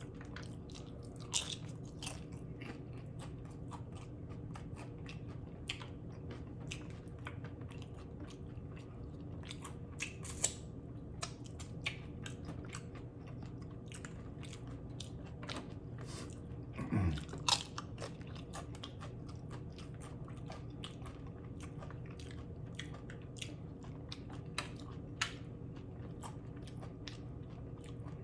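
Close-miked chewing and crunching of loaded steak nachos: tortilla chips cracking between the teeth in scattered crisp bites over a steady low hum. About seventeen seconds in comes the loudest moment, a short sound falling in pitch followed by a sharp crunch.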